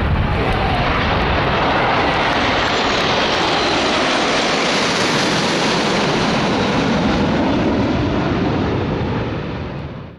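A large formation of military jets flying overhead, a loud steady roar whose pitch drops as it passes, then fading away near the end before cutting off abruptly.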